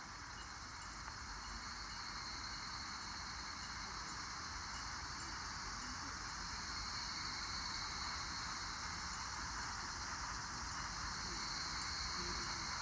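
Faint, steady hiss of wind, slowly growing louder, with a thin high steady tone and faint regular ticking above it.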